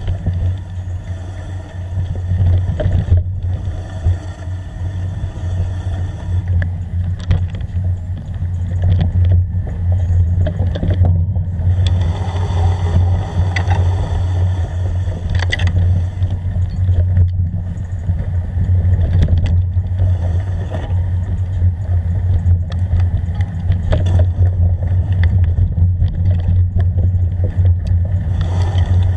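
Steady low rumble of a vehicle travelling along a bumpy forest dirt track, heard from an action camera mounted on it, with scattered knocks and rattles over the bumps.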